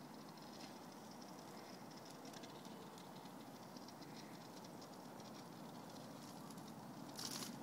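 Faint outdoor ambience with light, irregular pattering and ticking, and a brief louder rush of noise near the end.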